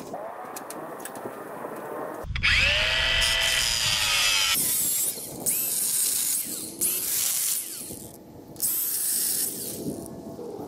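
Cordless drill/driver running in several short bursts with pauses between, driving screws while a door is fitted to the chicken tractor's wooden frame.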